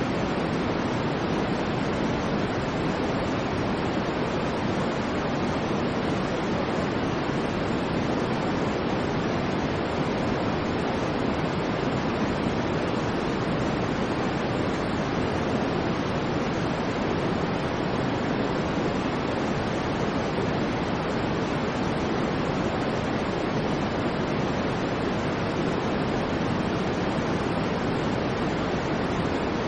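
Steady synthetic white noise: an even, unchanging hiss with no rhythm or swells, fuller in the lower-middle range than in the highs.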